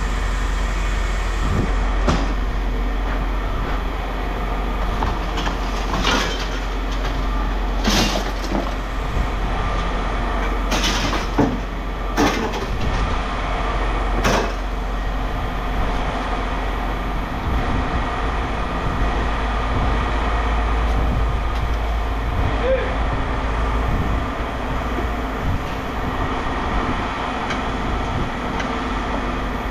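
A vehicle engine running steadily, with about six sharp clanks of scrap metal being handled in the first half.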